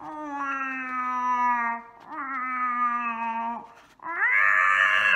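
A woman's voice imitating fighting cats: three long, drawn-out yowls, each sliding slowly down in pitch, the third one louder.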